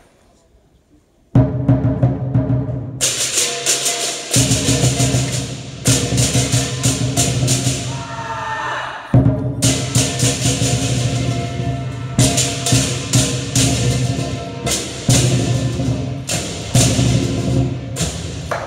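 Lion dance drum, cymbals and gong striking up about a second in: the big drum sets a steady beat, with the cymbals crashing in on top a couple of seconds later. The cymbals thin out briefly around the middle and then come back in.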